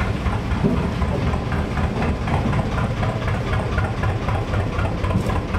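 Narrowboat diesel engine running with a steady low rumble inside a canal tunnel.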